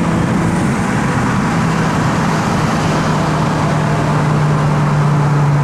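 Fiat 500 Abarth's turbocharged four-cylinder engine droning at a steady pitch while the car cruises, under loud road and tyre noise, heard from inside the cabin.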